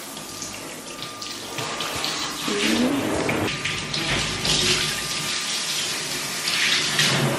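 Handheld shower head spraying water over a bathtub and tiled wall to rinse off cleaning product, the spray splashing and hissing. It grows louder about two seconds in and surges as the spray is moved about.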